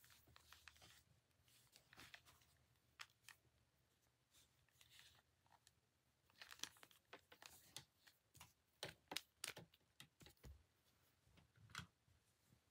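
Faint rustling and scattered small clicks of objects being handled, with a denser run of sharper clicks from about six to ten seconds in.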